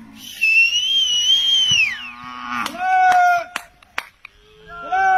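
A herder's loud, long whistle calling his cows, holding high and then sliding down at the end, followed by two shorter high-pitched calls.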